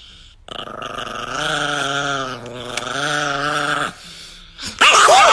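Chihuahua growling in one long, slightly wavering growl of about three seconds. Just before the end a louder person's voice cuts in.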